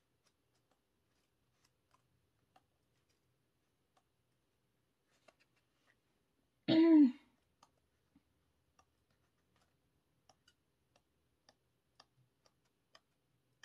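A short wordless vocal sound from a woman, a throat clear or a falling "hmm", about seven seconds in. Otherwise faint, scattered small clicks of paper being handled, typical of turning photobook pages.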